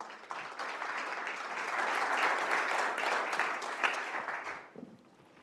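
Audience applauding, swelling to a peak about halfway through and dying away near the end.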